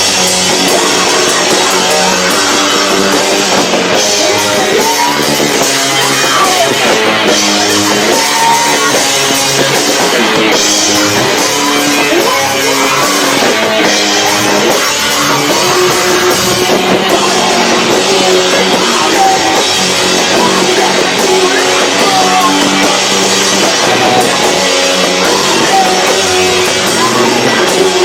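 Live rock band playing loudly: distorted electric guitar, bass and a pounding drum kit, with no letup. The camcorder's built-in microphone is overloaded by the volume, so the whole mix sounds crushed and distorted.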